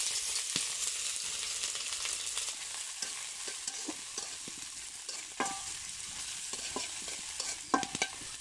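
Sliced onions sizzling in hot oil in a metal karahi, stirred with a metal spatula that scrapes and clicks against the pan. The sizzle is loudest at first and slowly dies down as the onions settle into the oil.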